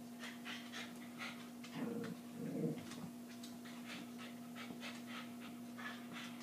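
Silky Terriers panting rapidly while they play, quick short breaths about three or four a second, with two louder low-pitched sounds about two seconds in.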